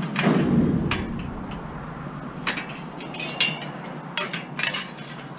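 Scrap metal pieces being handled and tossed onto a pile: a heavy thud near the start, then a string of sharp metallic clanks and clinks at uneven intervals.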